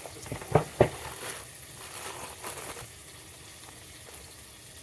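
Burger patty sizzling in a frying pan, a steady faint hiss, with two sharp knocks in quick succession just under a second in.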